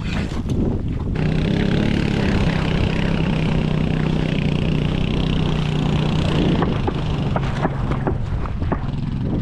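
Four-wheeler engine running at a steady pitch as it churns through slushy, half-frozen water to open a hole. A few sharp clicks and knocks come near the end.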